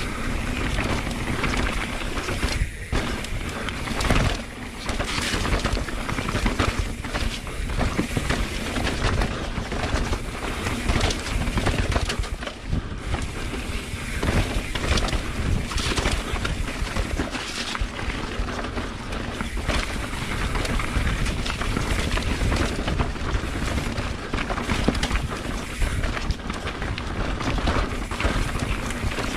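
YT Capra mountain bike descending a rough, rooty dirt trail: the tyres roll and the bike rattles with frequent knocks over roots and rocks, under a steady rush of noise.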